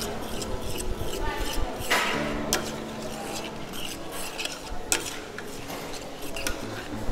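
Metal spoon stirring a thick risotto in a stainless steel pot, with repeated scrapes and clicks of the spoon against the pot's sides and bottom.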